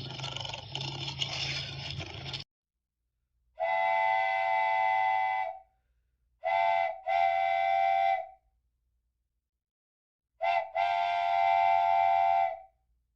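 Recorded animal calls: a short harsh, noisy call, then three long, steady, high-pitched trumpet-like blasts. The second and third blasts each begin with a brief stutter.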